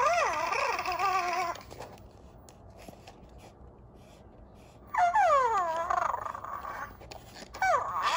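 Owleez electronic toy owl making its cute animal-like calls: a wavering call at the start, a longer call gliding downward about five seconds in, and a short swooping call near the end.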